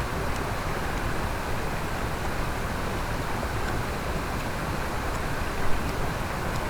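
Steady rush of a mountain stream, with a few faint ticks and one brief louder knock about five and a half seconds in.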